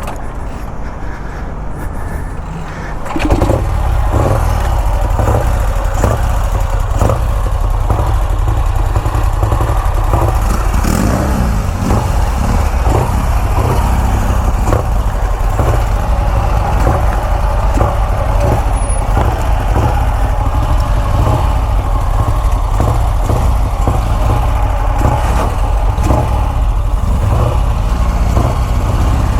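Motorcycle engine starting about three seconds in, then running steadily and loudly with a strong low rumble.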